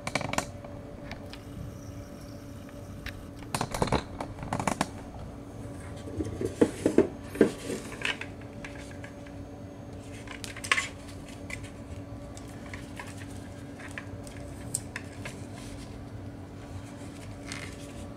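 Handling noise from a replica combat helmet being turned over in the hands: scattered clicks, knocks and light clatter of the shell, its NVG mount and chin-strap buckles. The loudest is a cluster of knocks about seven seconds in. A steady low hum runs underneath.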